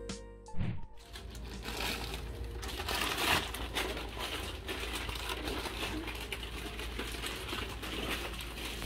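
Plastic candy and snack packets crinkling and rustling as they are handled and set out on a table, a steady run of small crackles.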